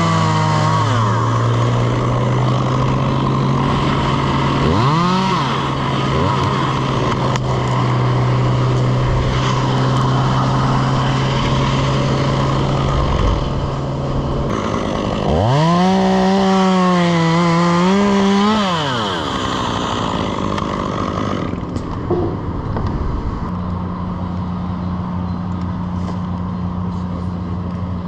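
Chainsaw blipped up and down at the start and again about five seconds in. It is then revved and held high for about three seconds around the middle, its pitch wavering. A steady engine drone runs underneath throughout.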